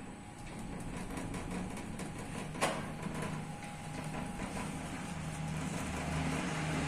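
Bakery machinery running steadily with a low hum and light, irregular ticking, and one sharp click about two and a half seconds in.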